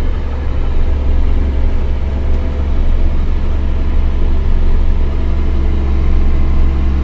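Kässbohrer PistenBully snow groomer's diesel engine running under load, heard inside the cab as a steady, deep drone.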